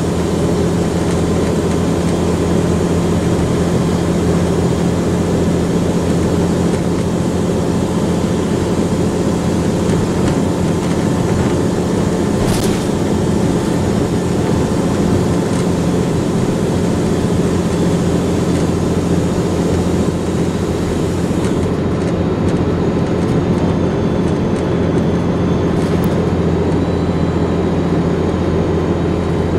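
Volvo Olympian double-decker bus's turbocharged diesel engine running steadily, a low drone. From about 22 seconds in, a faint high turbo whistle wavers above it.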